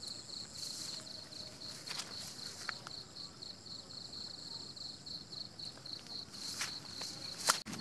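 Insects trilling: a steady, high-pitched, rapidly pulsing chirr, with a few sharp clicks, the loudest one near the end.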